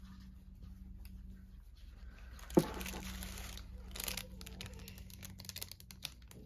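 Plastic packaging being crinkled and torn open by hand, with rustling and scattered small clicks through the second half. There is one short loud bump about two and a half seconds in.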